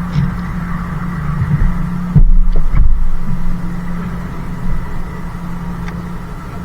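Boat motor running with a steady hum, broken about two seconds in by a brief burst of loud low thumps.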